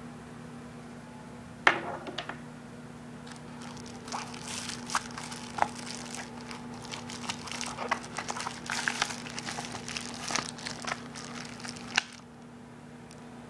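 Clear plastic bag around a manual crinkling and rustling as it is handled and pulled out of a mesh pocket, ending in a click. A sharp knock, the loudest sound, comes about two seconds in, and a steady low hum runs underneath.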